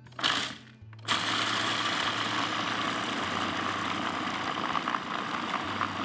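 Electric food processor running, its blade chopping a tofu and sunflower-seed mixture. A brief burst just after the start, then the motor runs steadily from about a second in.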